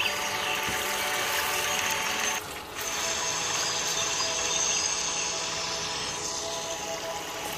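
Chili-tomato fish sambal simmering and sizzling in a wok while a silicone spatula stirs through it, with a brief dip about two and a half seconds in.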